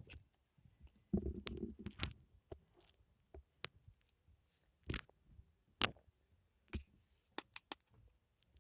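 Foam handled close to the microphone for ASMR: a short spell of soft squishing and crackling about a second in, then sparse sharp clicks and pops a second or so apart.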